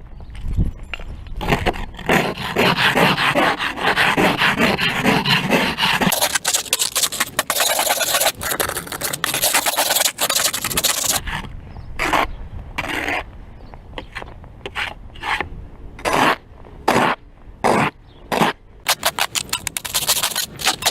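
Snow and ice being scraped off a car with a scraper or snow brush: several seconds of continuous scraping, then separate strokes about one a second that quicken near the end.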